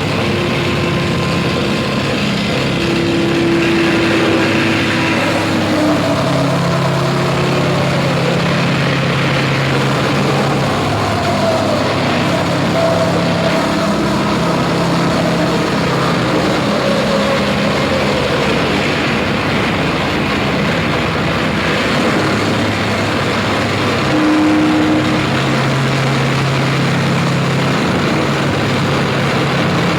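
Live harsh noise performance: a dense, loud wall of distorted noise with held low droning tones that come and go and now and then slide in pitch.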